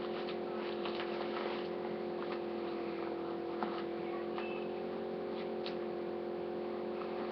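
A steady low hum made of several held tones, with a few faint clicks and light rustling from things being handled.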